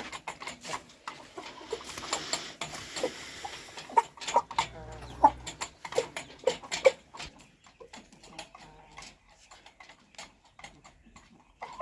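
Chickens clucking amid many short clicks and taps.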